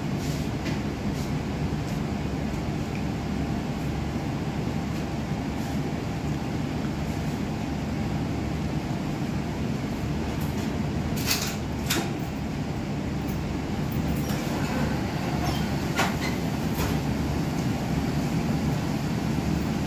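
Steady low background rumble of an indoor room, such as air conditioning, with a few sharp clicks about halfway through and again a little later.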